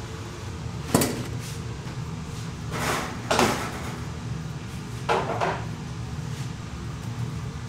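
Knocks and clatters of metal bakeware being handled over a steady low machine hum: one sharp knock, a longer clatter about three seconds in, and two lighter knocks a little after five seconds.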